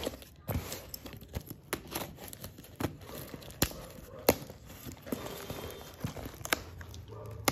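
Cardboard parcel being handled and turned over, with its packing tape and paper invoice crinkling and a metal nail cutter scraping at the tape. Several sharp taps and knocks, the loudest a little after halfway.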